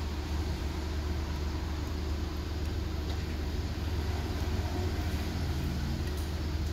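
Steady low hum with an even background noise, unchanging throughout, with no distinct knocks or tool sounds.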